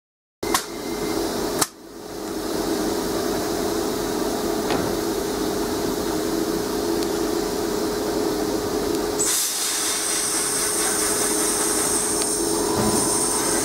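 Class 350 Desiro electric multiple unit at the platform: a sharp thud as its sliding plug doors shut, then the train's steady electric hum, with a high whine from its traction equipment joining about nine seconds in as it starts to move off.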